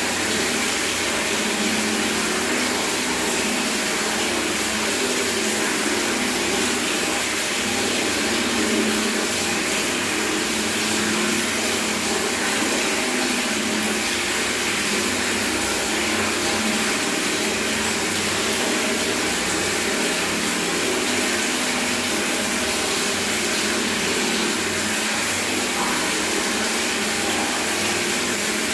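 Tap water running steadily into a bucket, a continuous even splashing rush.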